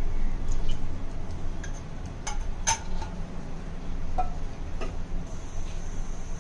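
Oil heating in a metal cooking pot on the stove: sparse, irregular light ticks and clicks, a few with a brief metallic ring, over a steady low hum.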